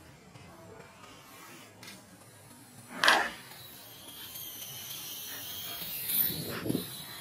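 Baby macaque crying in thin, high squeals in the last few seconds, with one short, loud sound about three seconds in.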